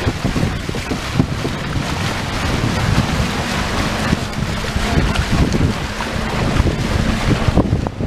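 Wind buffeting the microphone on the deck of a sailing catamaran under way, a loud, unsteady low rumble over a rush of sea water.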